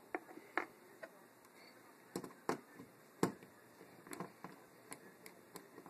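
Small screwdriver clicking and tapping against the screws of a plastic thermostat wall plate: about a dozen irregular light clicks, the loudest about three seconds in.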